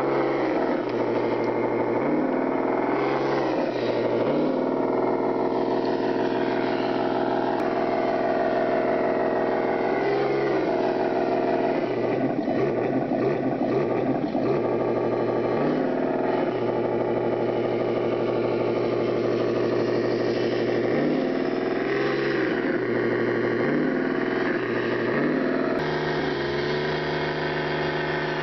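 An engine running and revving, its pitch rising and falling several times.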